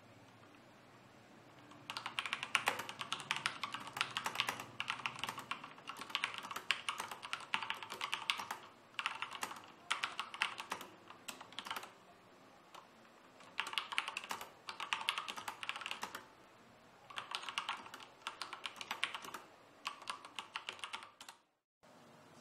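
Typing on a Corsair K63 tenkeyless mechanical keyboard with Cherry MX Red linear switches: rapid keystroke clacking in bursts of a few seconds with short pauses between them, quite loud for linear switches. The typing starts about two seconds in and stops just before the end.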